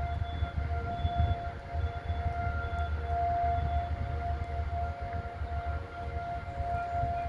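Outdoor tornado warning sirens sounding a steady tone. The tone swells and fades every second or so as the rotating horns sweep round, over a low gusty rumble.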